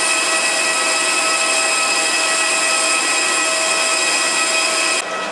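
Steady, loud jet turbine whine of an Airbus A320, heard from inside the parked aircraft, with several high tones held at a fixed pitch. It cuts off abruptly about five seconds in.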